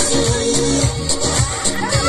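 Upbeat dance music with a steady beat, a repeating bass line and shaker-like percussion.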